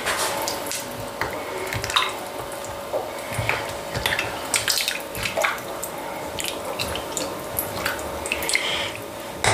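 A spatula stirring a stainless-steel saucepan of freshly watered lentil soup: liquid sloshing with repeated small knocks and scrapes against the pot, over a steady hum.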